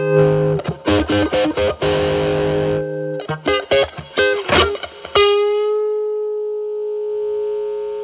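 Telecaster through a ZVEX Fuzz Factory Vexter fuzz pedal set for an octave-fuzz style, into a Marshall Valvestate amp's drive channel. A fuzzy held chord gives way to a run of quick picked notes. About five seconds in, a single note is left to ring, slowly fading.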